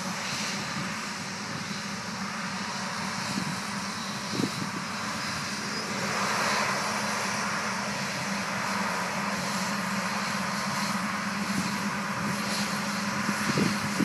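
Farm tractor pulling a grain cart across corn stubble: a steady engine drone that grows somewhat louder about six seconds in as the tractor comes closer.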